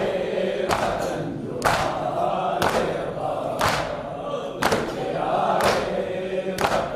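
Men's voices chanting a nauha, a Shia mourning lament, in unison, with matam: a sharp beat of palms striking chests together about once a second.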